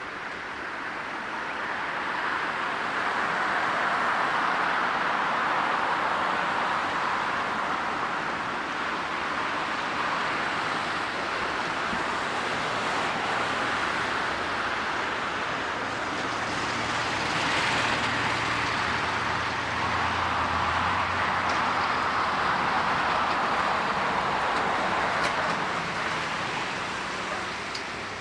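Jet airliner engines roaring as the plane passes close by on approach or takeoff. The roar builds over the first few seconds, holds steady for most of the stretch, and fades near the end.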